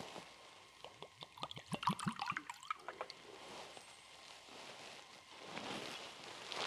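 A short pour of liquid into a chalice, with light clinks and knocks of the altar vessels about one to three seconds in.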